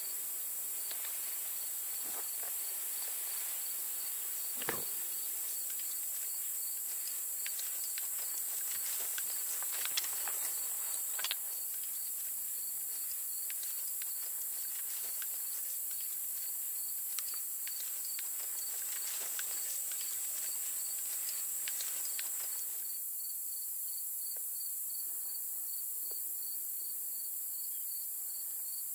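Steady high-pitched insect chorus with an even, pulsing chirp running through it, over scattered rustles and clicks of gear being handled and footsteps in grass. The rustling stops abruptly about three-quarters of the way through, leaving only the insects.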